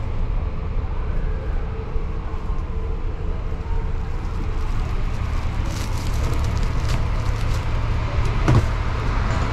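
Bus engine idling: a steady low rumble, with a sharp knock near the end.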